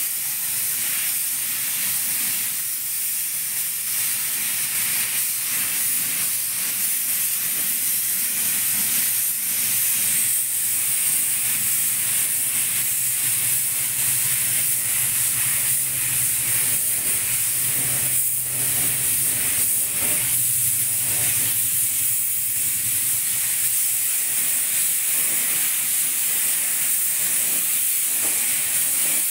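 Gravity-feed compressed-air spray gun hissing steadily as paint is sprayed onto a car bumper.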